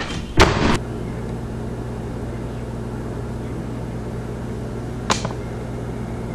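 A door slammed shut hard: one loud bang about half a second in. Then a steady low room hum, with a single short sharp click near the end.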